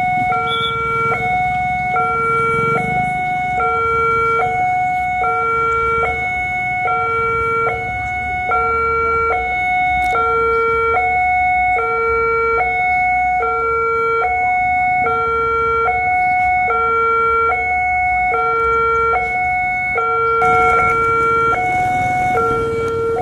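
Railway level-crossing warning alarm: an electronic signal alternating steadily between a low and a higher tone, each held a little over half a second. It is sounding because a train is approaching the crossing.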